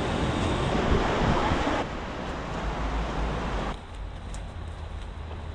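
Rushing river water with wind rumbling on the microphone. The noise steps down abruptly about two seconds in and again near four seconds.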